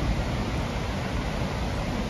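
Steady rushing of the high, muddy Bluestone River in flood: a constant, even roar of water with a deep rumble underneath.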